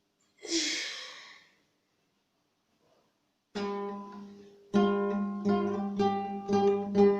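A short breathy burst of noise about half a second in. Then, from about three and a half seconds in, an acoustic guitar is strummed in repeated strokes, louder toward the end.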